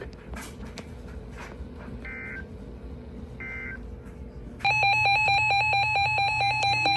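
Emergency Alert System broadcast starting a new alert: two short digital data bursts of the header, then about four and a half seconds in the loud, steady two-tone EAS attention signal starts and holds, announcing a severe thunderstorm warning.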